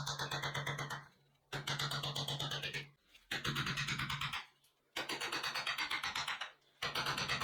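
A power tool grinding or sanding steel in short bursts with pauses between, each burst with a fast, even pulsing of about ten beats a second over a steady motor hum.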